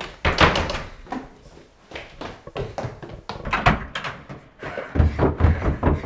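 A door pushed open with a thunk, then irregular thudding footsteps going down carpeted wooden stairs, heaviest near the end.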